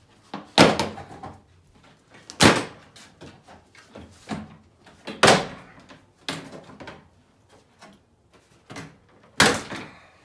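Plastic snap-in clips of a 2019 Honda Pilot's top front trim panel popping loose one after another as the panel is pried up: about five sharp snaps a second or more apart, the loudest near the start and about nine seconds in, with plastic rustling between.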